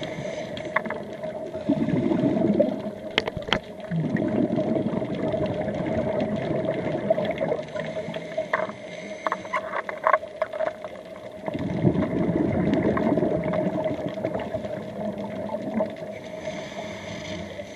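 Scuba regulator breathing underwater: repeated bursts of exhaled bubbles gurgling past the camera, each lasting a second or more, over a steady hum, with scattered sharp clicks.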